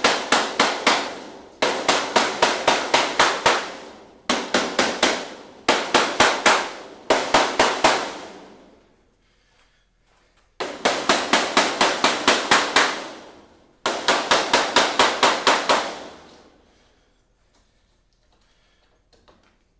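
Mallet tapping the top panel of a PVC reptile enclosure down into its plastic channel: quick runs of sharp strikes, about five a second, in bursts of a second or two with short pauses between.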